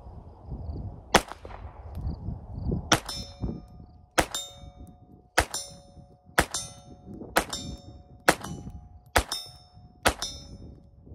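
GSG 1911 pistol in .22 LR firing nine shots about a second apart. From the second shot on, each is followed by the ring of a struck steel target.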